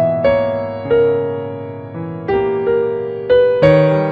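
Background music: a simple keyboard melody of single struck notes, each starting sharply and fading away, about seven in a row.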